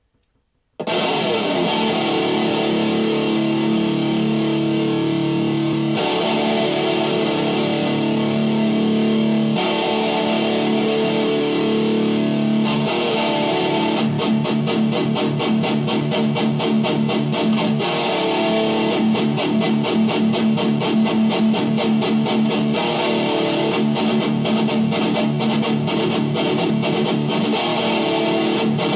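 Distorted electric guitar on a black Les Paul–style instrument playing a medley of extreme-metal riffs. It starts just under a second in with held, ringing chords that change every few seconds, and about halfway through switches to fast tremolo-picked riffing.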